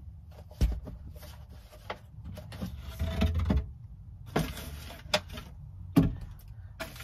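An antenna mast being pushed up and handled among wooden attic rafters: several sharp knocks with scraping and rustling between them.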